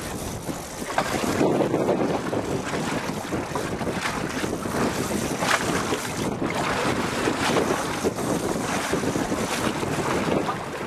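Wind buffeting the microphone over the steady wash of sea water around a boat's hull. The noise swells and eases unevenly.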